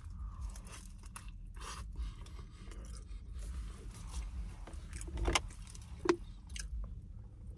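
Eating a burrito: biting and chewing, with the foil wrapper rustling and crackling sharply a few times. A steady low hum runs underneath.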